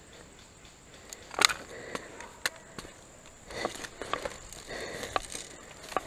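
Footsteps crunching through dry leaf litter and snapping twigs, irregular and starting about a second in, with one sharp crack, the loudest, near a second and a half in.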